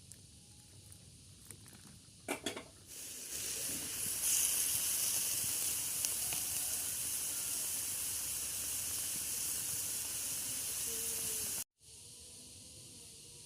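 Food sizzling in hot oil in a pan: a few sharp clicks, then a loud steady sizzle from about three seconds in that stops abruptly near the end, leaving a fainter hiss.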